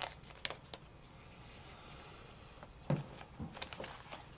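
Trading cards being handled: light clicks and a faint slide of a card in a plastic sleeve, then a soft thump on the table about three seconds in, followed by a few small clicks.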